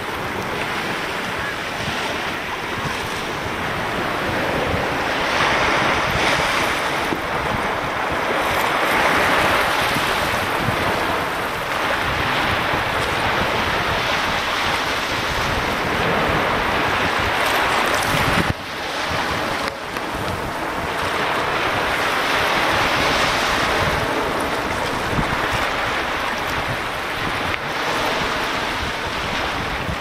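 Small sea waves washing in over a shallow, seaweed-covered shore close by, the rush swelling and easing over several seconds. Wind buffets the microphone, adding a low rumble.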